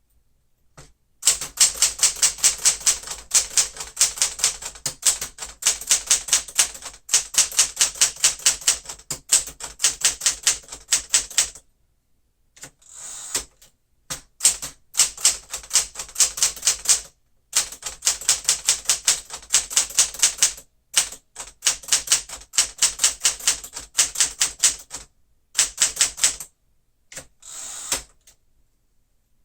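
A 1961 Smith-Corona Galaxie manual typewriter being typed on: quick runs of sharp type-bar strikes, several a second, broken by short pauses. There are two brief sliding sounds, one near the middle and one near the end.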